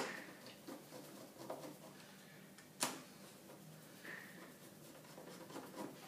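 Faint scraping and small ticks of hand work on the screws of a fridge door hinge being tightened, with one sharp click about three seconds in.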